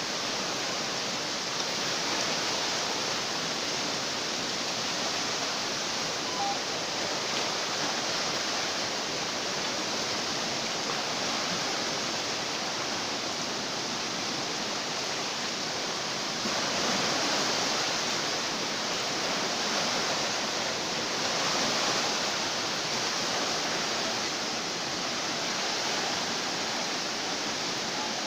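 Floodwater of a river in flash flood rushing past in a steady roar of fast water, swelling slightly louder about two-thirds of the way through.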